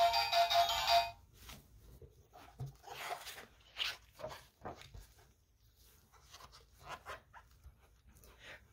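A sound book's electronic button tune plays for about a second and cuts off abruptly, followed by faint, scattered rustles and taps of the book being handled.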